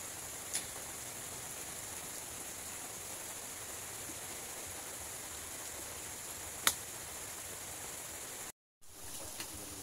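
Steady hiss of outdoor night ambience, with two short sharp clicks about six seconds apart. The sound cuts out briefly near the end.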